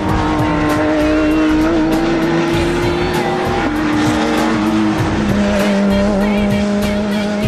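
Background music with a steady beat, mixed with the sound of racing cars' engines on a circuit.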